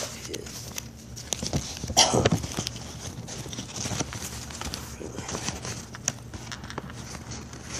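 Phone being handled with its microphone covered: irregular clicks, knocks and rubbing against the microphone, with a louder scrape about two seconds in.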